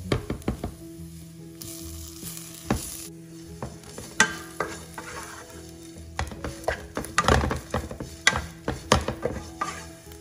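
Wooden spatula stirring and scraping onions, green chillies, curry leaves and ground spices frying in coconut oil in a pan: a frying sizzle under repeated scrapes and knocks of the spatula, busiest in the second half. The spice powders are being roasted in the oil.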